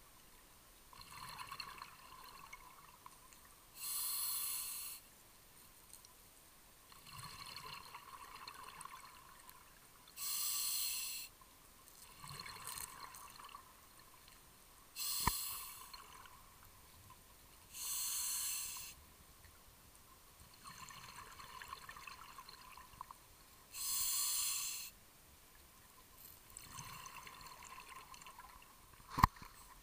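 Scuba diver breathing through a regulator underwater: quieter hissing inhalations alternate with louder one-second rushes of exhaled bubbles, five of them about six seconds apart. A sharp click about halfway through and a louder one near the end.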